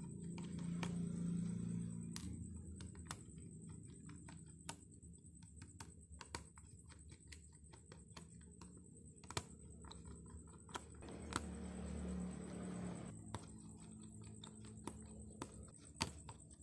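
Precision screwdriver working the tiny screws of a phone's plastic inner housing: irregular light clicks as the tip seats and turns in the screw heads, with two longer stretches of scraping, one near the start and one past the middle.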